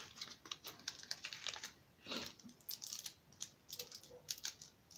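Handling noise close to the microphone: soft, irregular clicks and rustles, like light tapping and fabric moving, with no steady machine sound under them.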